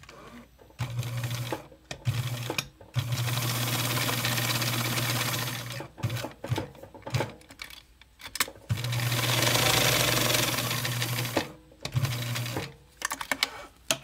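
Domestic sewing machine stitching through felt in several separate runs, two of them about three seconds long, stopping and starting between them, with short clicks in the gaps and a cluster of clicks near the end.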